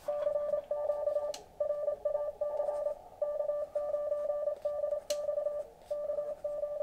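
Morse code (CW) from a contest station received on an Elecraft KX2 transceiver: a single tone of about 600 Hz keyed on and off in quick dots and dashes. Two short clicks come through, about a second and a half in and again about five seconds in.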